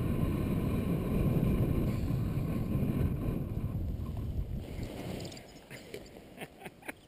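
Airflow rushing over the camera microphone as a paraglider comes in low to land; it fades away about two-thirds through as the glider slows and touches down. A few light knocks and rustles follow near the end.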